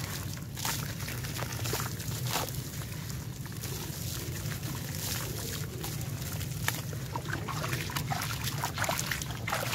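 A dry sand-cement chunk crumbling in the hands, gritty crumbs pouring and trickling into a tub of water, with many small crackling snaps; near the end the soaked chunk is squished and sloshed in the water. A steady low hum sits underneath.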